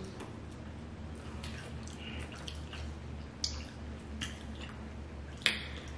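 Wet squishing and small clicks of hands picking through a seafood boil in plastic bags and pulling meat from crab legs, with a sharper click near the end.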